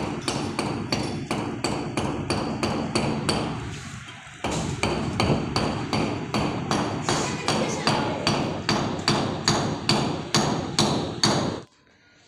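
Hammer driving a nail into a plaster wall: a steady run of blows, about three a second, with a short break about four seconds in. The hammering stops suddenly near the end.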